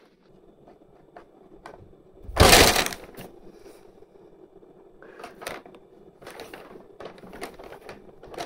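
Brown paper bag crinkling and rustling as a black cat pounces into it and paws at it: one loud crumpling burst about two and a half seconds in, then several shorter rustles.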